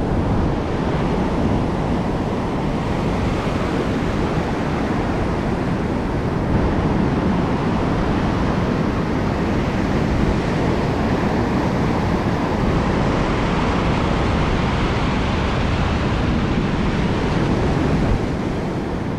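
Ocean surf breaking and washing up a sandy beach in a steady rush, with wind rumbling on the microphone.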